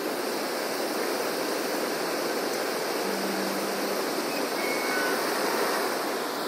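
Water gushing through the open sluices of a canal lock's upstream gate as the lock chamber fills: a steady rush of pouring water.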